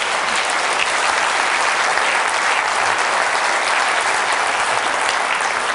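An audience applauding, with steady clapping throughout.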